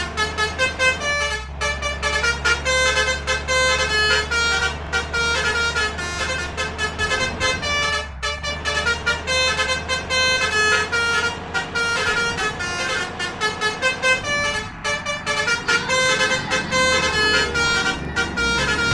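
Basuri 'telolet' musical multi-tone air horns playing quick melodic tunes of short changing notes, over a steady low engine rumble.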